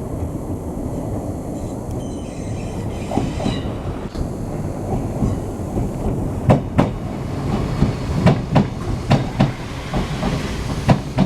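Enshu Railway 2000-series electric train running on the line with a steady rumble. From about halfway, its wheels click and clack irregularly over rail joints.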